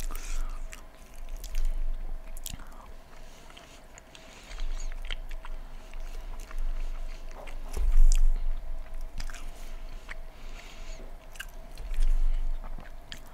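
Close-miked chewing and biting of poutine, with many short wet mouth clicks and swells of chewing, the loudest about eight seconds in. A faint steady hum runs underneath.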